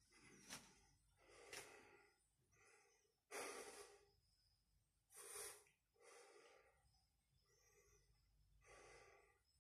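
A man breathing faintly, close to the phone microphone: a series of soft breaths about a second apart, the two deepest about three and a half and five seconds in. Two small clicks sound in the first couple of seconds.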